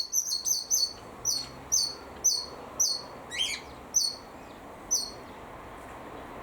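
A bird chirping a series of short, high, slightly falling notes, about two a second at first, then spacing out and stopping about five seconds in. A single different call rises and falls once, about three and a half seconds in.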